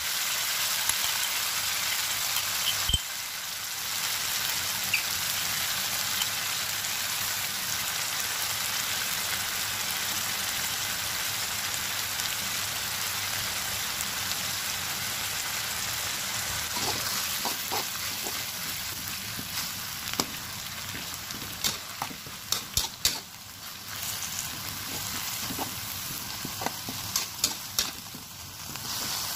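Blended chili spice paste sizzling as it is sautéed in hot oil in a pan, a steady frying hiss. In the last third, a metal spatula scrapes and taps against the pan as the paste is stirred.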